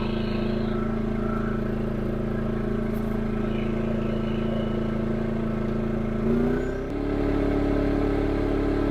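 Champion 4000-watt inverter generator's engine running steadily just after being started. About six and a half seconds in its engine speed changes and it settles at a higher pitch.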